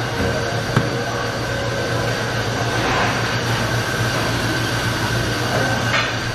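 Steady machine hum and even rushing noise of a commercial kitchen, with a thin steady high tone running through it and a few faint clicks.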